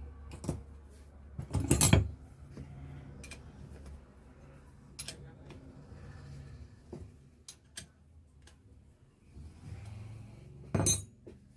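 Metal tools and starter-motor parts clinking and clattering as the starter is put back together: a loud burst of clatter about two seconds in, another near the end, and scattered single clicks between.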